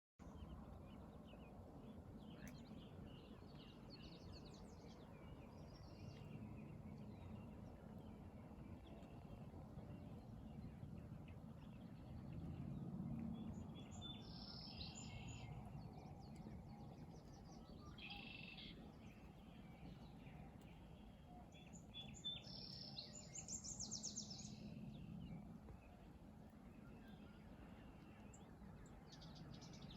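Quiet outdoor ambience: birds chirping in short bursts every few seconds over a low, steady rumble of background noise.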